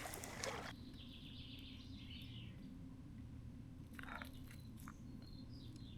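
Faint birds chirping over a low steady outdoor background, with a brief rustle at the start and another about four seconds in.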